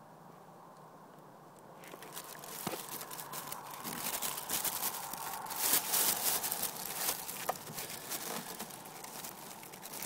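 Crackling, rustling handling noise from a hand pushing among rubber hoses and wiring-harness connectors, close to the microphone. It starts about two seconds in and is loudest near the middle.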